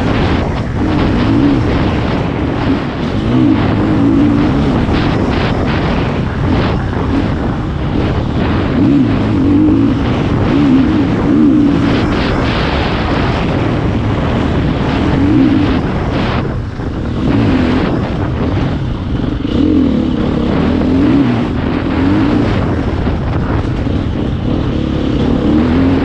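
Husqvarna FE 350 enduro bike's single-cylinder four-stroke engine, heard from the rider's position while it is ridden hard along a dirt trail. The revs rise and fall over and over as the throttle is opened and shut.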